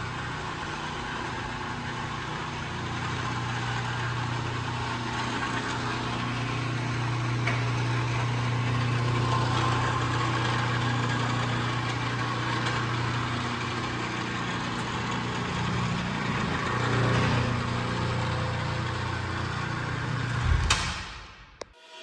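A Schweiss strap-lift bifold door's electric lift motor running steadily with a low hum as the 40-by-16-foot door closes. It stops near the end.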